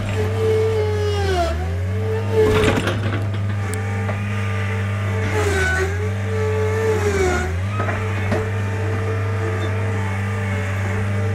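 Mustang skid-steer loader's engine running steadily, its pitch dipping briefly three times as it takes load. A short clatter comes about two and a half seconds in.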